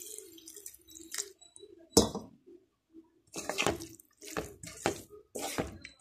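Water poured into a metal kadai of sautéed cabbage, carrot and beans, a faint hiss at first, then a sharp knock about two seconds in. In the second half a wooden spatula stirs the vegetables, scraping against the pan in a run of strokes about every half second.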